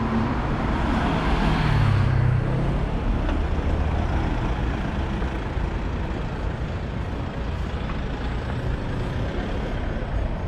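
Street traffic, with a heavy road vehicle passing close: a swell of engine and tyre noise, its engine note falling in pitch about two seconds in, then a steady traffic hum.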